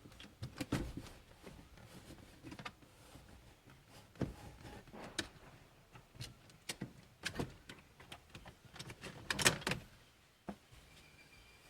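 Hard plastic center console trim being lifted out and handled: scattered knocks, clicks and rattles at irregular intervals, with a louder rattle near the end.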